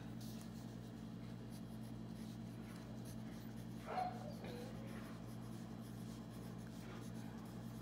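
Pencil scratching on paper as a line of a table is written out by hand, faint over a steady low hum. A short pitched sound rises out of it about four seconds in.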